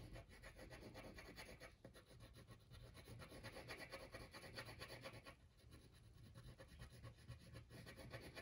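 Faint scratching of a wax crayon scribbling on paper in quick, repeated back-and-forth strokes while colouring in.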